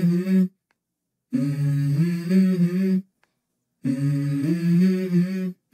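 A single voice humming a short melodic phrase without accompaniment, repeated about every two and a half seconds with brief silences between, as part of the video's background song.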